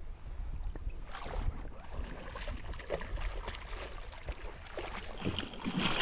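Water sloshing and splashing around a float tube during a fight with a bass on the line, with many irregular small knocks and a low wind rumble on the microphone.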